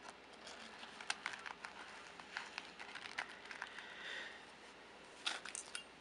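Faint handling sounds of a small fishing-kit tube being packed into a nylon pouch: scattered light clicks and taps with soft rustling, and a quick cluster of sharper clicks near the end.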